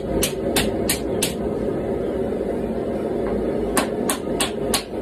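Wooden mallet striking a steel knife blade held on an anvil: a quick run of about four blows, roughly three a second, a pause of over two seconds, then another run of four or five blows near the end. A steady low roar from the running gas forge sits underneath.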